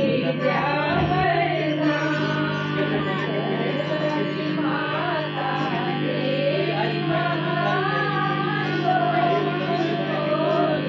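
Devotional song playing: a voice singing a wavering melody over steady instrumental backing with a held low drone.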